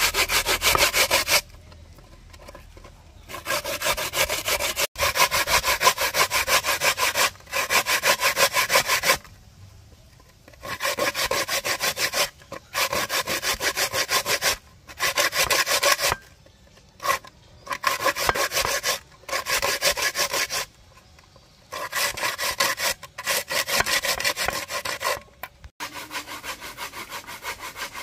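Fruit being grated by hand on a grater: quick rasping strokes in bursts of one to two seconds, with short pauses between. The last bursts are quieter.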